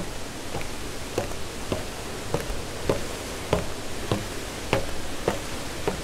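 Footsteps going down concrete stairs at an even walking pace, about ten steps roughly 0.6 seconds apart, over a steady hiss.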